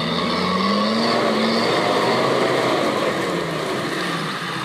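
A 4x4's engine revving, its pitch rising over the first second or so, then peaking and easing off toward the end.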